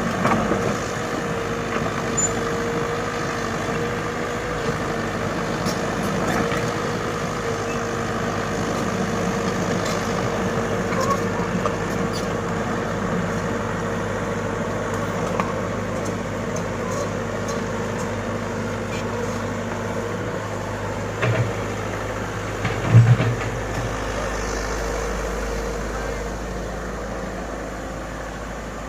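Komatsu excavator's diesel engine running steadily. About two-thirds of the way through its even tone drops away, two short heavy knocks follow, and a deep low rumble sets in.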